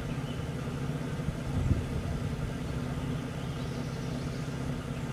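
An engine idling with a steady low hum, with one brief low thump under two seconds in.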